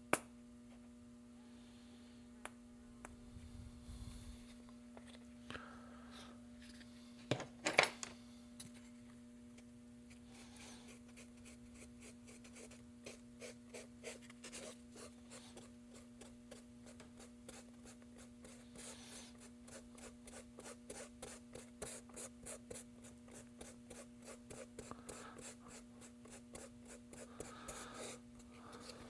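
Glazing putty being worked together with its hardener using a spreader: faint, quick, repeated scraping strokes that start about ten seconds in, with a clatter a few seconds before, over a steady hum.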